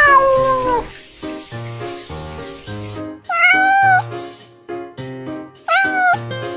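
A cat meowing three times, each call rising and then falling in pitch, over background music with a steady beat.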